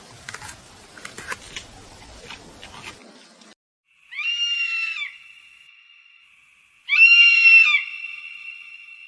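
An animal calling twice, each call a loud, high-pitched scream lasting just under a second, after a few seconds of faint scratchy noises.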